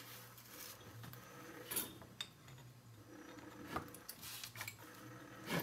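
Light metal handling clicks and knocks as the end housing of a 6-volt Autolite starter is worked onto the starter's frame and turned to line up its locating peg with the notch. Three sharper knocks come about two seconds apart, the last one the loudest, near the end.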